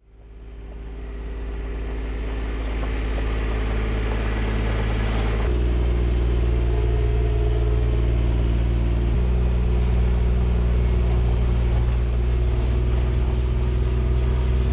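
Motor vehicle engine running steadily, fading in at the start, with two sudden shifts in its tone about five and nine seconds in.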